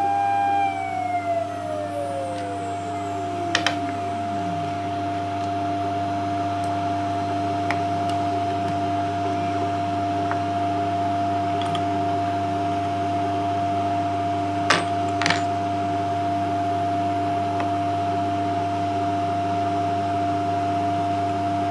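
CNC machine spindle winding down after a cut, its whine falling steadily in pitch over about four seconds, over the machine's steady electrical hum and whine. A few sharp clicks come near the middle.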